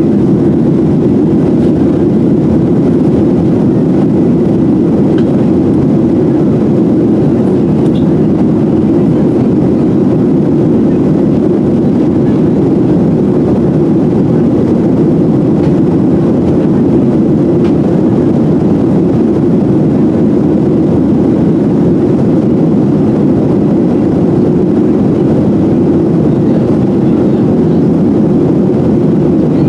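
Steady cabin noise inside a Boeing 737-700 airliner: an even, low rush of its CFM56-7 turbofans and airflow that does not change.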